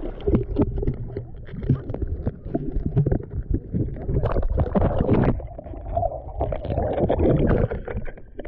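Water sloshing and splashing against a waterproof action camera held at the surface, in irregular splashes over a low rumble as small waves slap the housing.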